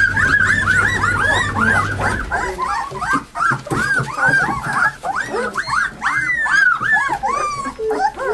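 A litter of two-week-old Alaskan Malamute puppies crying, many short high cries rising and falling, overlapping several a second. A low steady hum stops about two seconds in.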